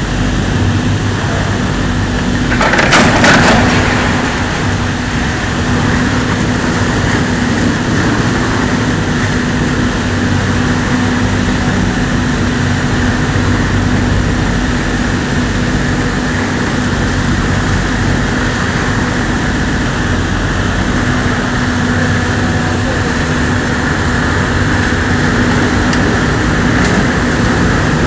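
A boat engine running steadily with a constant low hum, over churning water. A short louder rushing burst comes about three seconds in.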